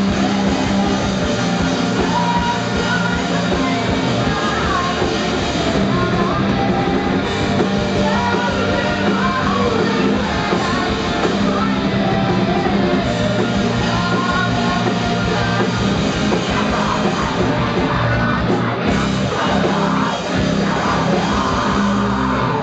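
Live rock band playing loud, with electric guitars, drums and a singer's vocals.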